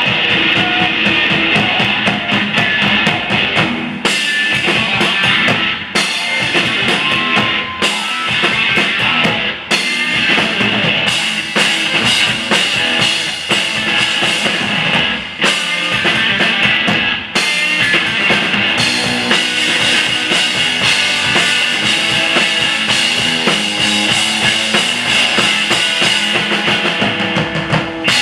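Live rock duo playing: hard-hit drum kit with bass drum and snare driving the beat under a hollow-body electric guitar, loud and continuous.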